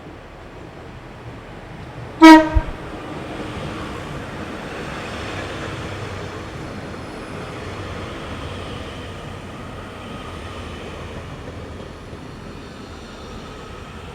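A train sounds one short, sharp horn toot about two seconds in, then runs past with a steady rumble of wheels and motors that swells and lingers.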